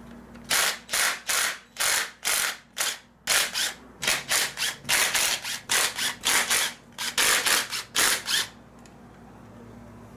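Hand ratchet wrench clicking in about twenty quick back-and-forth strokes, two to three a second, as bolts on the Jeep 4.0's cylinder head valvetrain are loosened. The ratcheting stops about a second and a half before the end.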